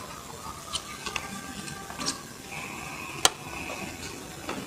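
A few light clicks and taps as playing cards and small objects are handled on a table, with one sharper click about three seconds in.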